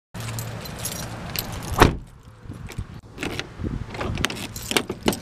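A bunch of car keys jangling and clicking against the door as the car door is locked by hand, with one sharp knock about two seconds in as the door is shut.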